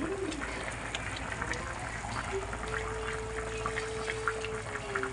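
Chicken in coconut-milk broth boiling in a wok, a steady bubbling with many fine crackles, as the aluminium lid is lifted off near the start. From about halfway in until near the end, a single steady held tone sounds over it.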